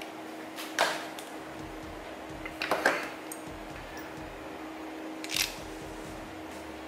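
A few sharp clicks and knocks as a Kaizen Oarai spinning reel and its handle are handled and fitted together, over a faint steady hum.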